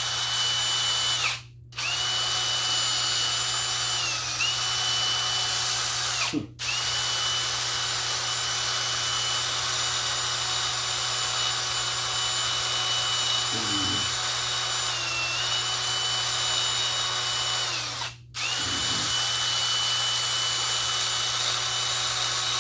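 Electric drill spinning a small wire wheel against a corroded battery terminal, scrubbing off the corrosion: a steady high motor whine over scraping. It cuts out briefly three times and dips slightly in pitch a couple of times as the wheel is pressed on.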